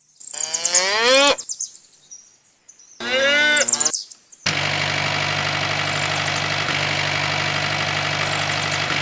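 Two short rising whines in the first four seconds, then from about four and a half seconds in a miniature tractor's motor running with a steady, even hum.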